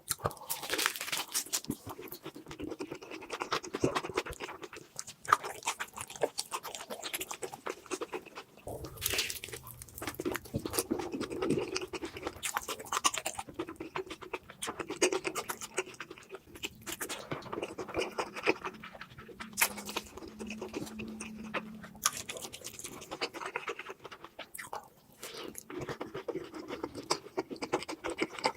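Close-miked eating sounds: a person chewing, with many quick wet mouth clicks and smacks throughout.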